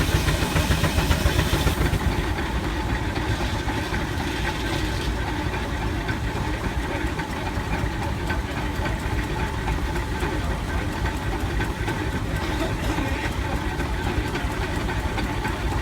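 Case steam traction engine running steadily while driving a sawmill, with a fast, even mechanical beat.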